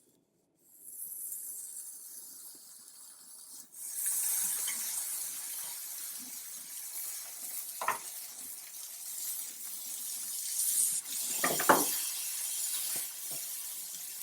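Buttered bread sandwiches sizzling on a hot grill pan, a steady hiss that gets louder about four seconds in. A few light knocks of utensil or pan come through twice near the end.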